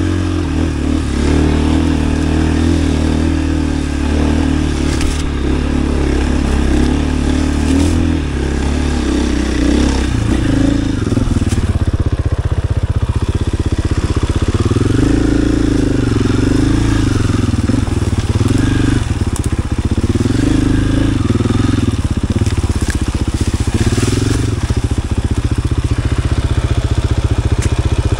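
KTM EXC-F 500 enduro motorcycle's single-cylinder four-stroke engine running under way. Its pitch is fairly steady for about the first ten seconds, then rises and falls repeatedly as the throttle is opened and closed.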